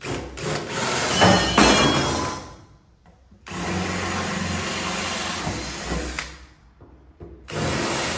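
DeWalt 20V Max cordless drill with a 3/16-inch bit drilling out old rivet holes in the trailer's sheet-metal wall, in three separate runs. The first, about two and a half seconds long, grinds loudest in its middle. The second, about three seconds, is steadier, and a short third run starts near the end.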